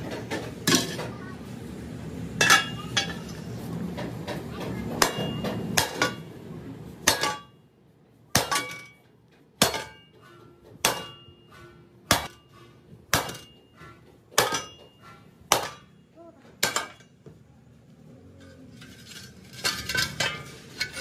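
Steel wheel rims clanking as they are moved about, then a hammer striking a steel rim about once a second, eight ringing blows in a row, followed by lighter clinking.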